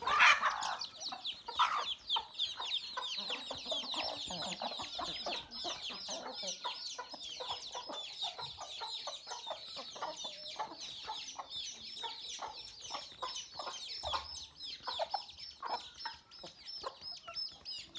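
A flock of free-range chickens calling together: a continuous chorus of many high-pitched peeps mixed with lower clucks, with one louder call right at the start.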